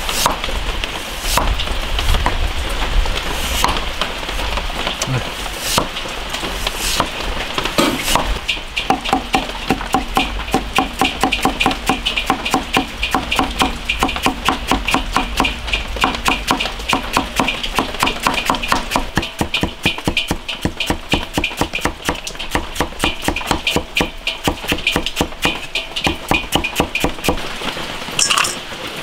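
Chinese cleaver cutting a white radish on a thick wooden chopping block. A few separate cuts come first, then about eight seconds in it turns to fast, even chopping of about four strokes a second as the slices are cut into shreds.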